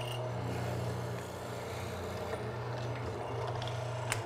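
Hollow-chisel mortising machine's motor running steadily as its 3/8-inch square chisel and inner bit bore a shallow mortise, only about 3/16 inch deep, into hardwood. Near the end there is a click and the motor stops.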